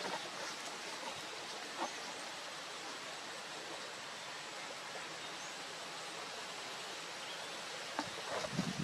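Steady outdoor background hiss with a few faint, short, high bird chirps, and a brief cluster of rustling knocks near the end.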